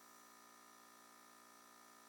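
Near silence: only a faint, steady hum and hiss.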